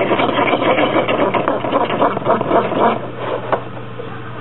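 Small plastic food packet crinkled and torn open by hand: a dense, rapid crackle that dies down about three seconds in.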